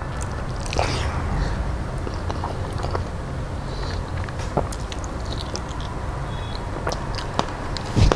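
A man chewing a mouthful of hand-mixed rice close to the microphone, with scattered short mouth clicks and smacks over a steady low hum.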